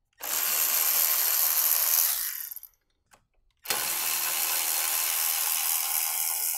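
Power ratchet with a 10 mm socket on an extension, spinning out the fuel rail hold-down bolts in two runs of about two and a half and three seconds, the second starting about halfway in.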